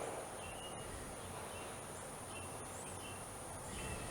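Faint outdoor nature ambience: a steady high insect drone with short bird chirps repeating every second or so.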